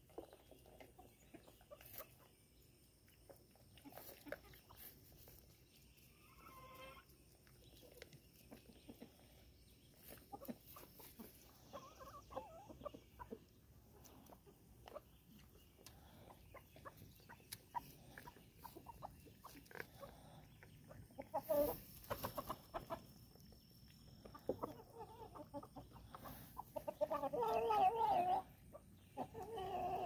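Chickens clucking on and off, loudest and closest near the end, with faint ticks and rustles in between.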